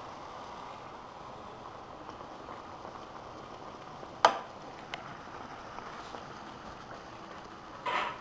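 Fry bread dough sizzling in hot oil in a frying pan: a steady crackling hiss. A single sharp knock comes about four seconds in, and a brief louder burst of sizzle or clatter comes near the end.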